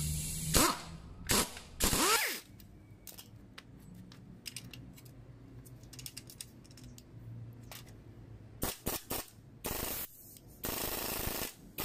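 Pneumatic impact wrench hammering on the top nut of a car's front shock absorber strut, whose coil spring is held in a spring compressor. It runs in short bursts in the first couple of seconds, goes quiet, then fires several more bursts near the end.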